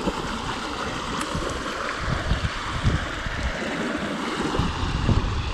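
Flowing river water rushing steadily, with irregular low rumbles and knocks from about two seconds in.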